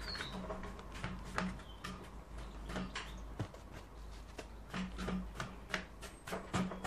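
Large flat hake brush dragged and dabbed across wet watercolour paper: a run of short, irregular scratchy strokes over a faint low hum.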